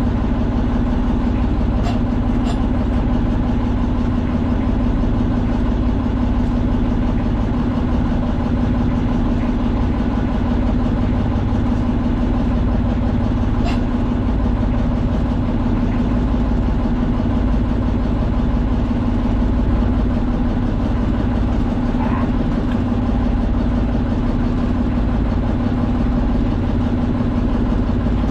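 Outrigger boat's engine running steadily at an unchanging speed, a constant drone with a strong low hum, with a few faint clicks.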